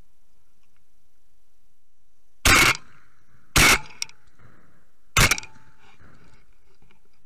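Three shotgun shots fired in quick succession at flying doves, about a second and then a second and a half apart, very loud and sharp from a camera mounted on the gun itself.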